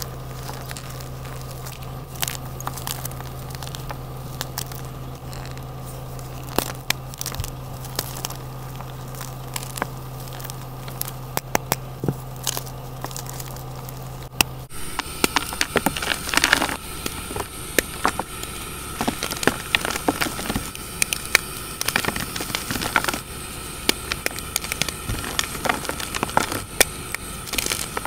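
Hands crushing and crumbling blocks of gym chalk, a run of dry crackling and crunching with a low steady hum underneath in the first half. After a sudden change about halfway through, the crunching becomes denser and louder.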